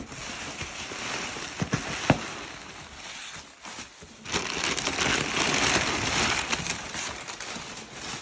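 Plastic bubble-wrap packing and crumpled packing paper rustling and crinkling as they are handled in a cardboard box, with a few sharp crackles in the first couple of seconds. The rustling grows louder and denser about halfway through.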